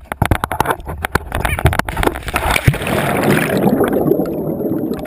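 Water splashing and ticking against a GoPro camera as it goes under a lake's surface, then dense, muffled underwater bubbling from about two and a half seconds in.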